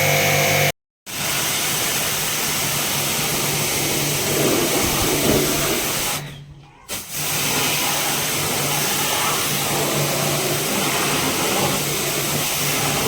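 Electric pressure-washer pump running with a steady hum while its water jet hisses, washing a split air conditioner. The spray stops briefly about six seconds in, then starts again.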